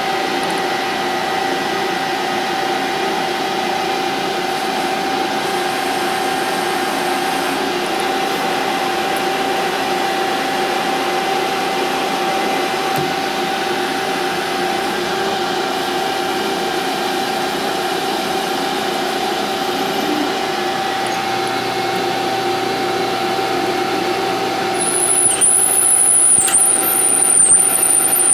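Grizzly G0602 metal lathe running with a steady whine while a drill in the tailstock works into the spinning aluminum part. Near the end the cut gets louder and a high, wavering squeal comes from the drill.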